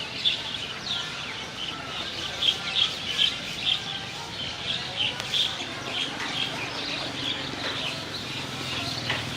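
Birds chirping: a steady run of short, high calls, about two a second.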